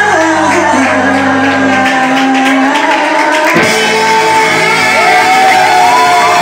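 Live band playing loudly, heard up close: electric bass and drums, with a voice singing over them.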